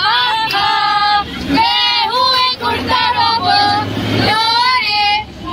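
A group of young women singing a Hindi song together without accompaniment, holding long notes, over the low hum of a moving bus.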